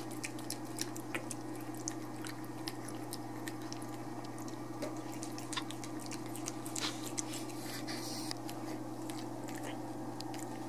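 A cat chewing wet cat food from a plastic plate close to the microphone: many small, wet clicks and smacks. A steady low hum runs underneath.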